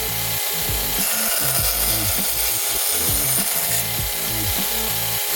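Craftex CT169n bench belt sander running and sanding, a steady hiss, under background music with a stepping bass line.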